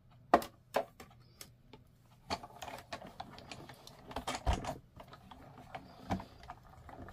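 Irregular light clicks and taps from handling die-cutting plates, a steel die and cut cardstock pieces, with a firmer knock about four and a half seconds in.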